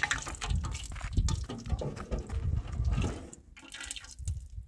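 Liquid sloshing in a metal tin over a fire as it is stirred with a long pole, easing off after about three seconds.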